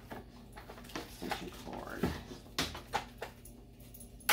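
Electrical cords being handled and pulled across a table, with scattered light clicks and knocks of cord and plug. About two seconds in, a short whine-like sound falls in pitch.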